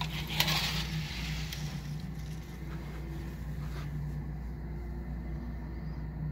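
A sheer fabric curtain brushed aside by hand, a short rustle about half a second in, then a few faint handling clicks. Under it runs a steady low hum.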